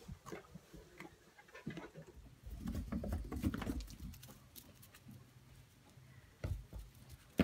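Pygmy goat kids' small hooves pattering and scuffling on straw and wood-chip bedding as they scamper and play. The sound comes in irregular bursts, loudest from about two and a half seconds in and again briefly near the end.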